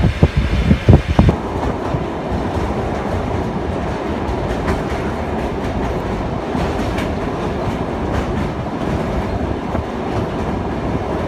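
Passenger train running on the rails, heard from inside the carriage: a few loud wheel knocks in the first second or so, then a steady rumble with a few faint clicks as the train crosses a steel truss bridge.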